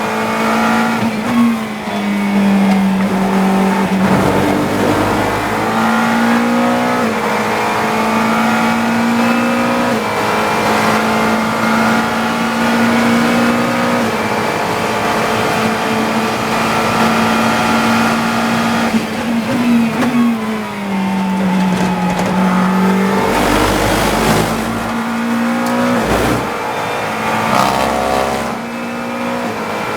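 GT3 race car engine heard from inside the cockpit at racing speed. Its pitch holds, then steps and glides down with gear changes, and a few loud rough bursts of noise come near the end.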